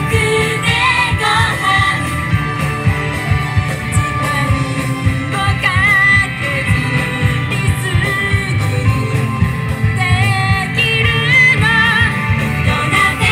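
Female pop vocal group singing live into handheld microphones over upbeat recorded backing music with a steady beat, amplified through stage speakers.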